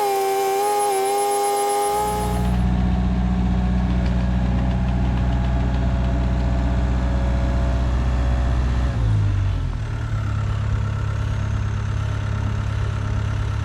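Wood-Mizer band sawmill: for about two seconds the blade whines through a cut, then the mill's engine runs on with a steady low hum. About nine seconds in, the engine's pitch drops and it settles at a lower, steady speed.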